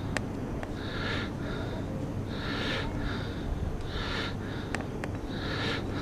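Someone breathing fast and audibly close to the microphone, a paired in-and-out breath about every second and a half. A steady low hum runs underneath.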